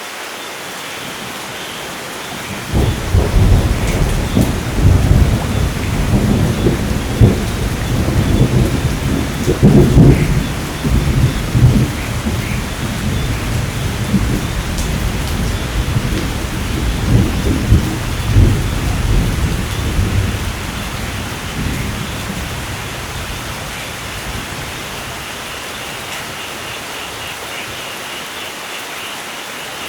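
Steady rain falling, with a long roll of thunder that breaks in suddenly about three seconds in, peaks with loud cracks around seven and ten seconds, and rumbles away to nothing well before the end, leaving the rain.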